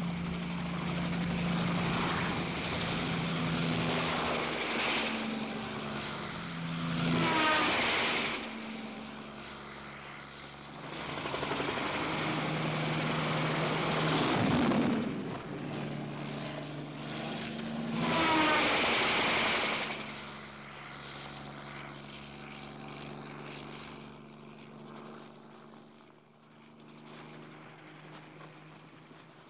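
Bell 47 helicopter's piston engine and rotor running steadily as it swoops low overhead three times. Each pass grows loud and slides down in pitch as it goes by. The helicopter fades further off near the end.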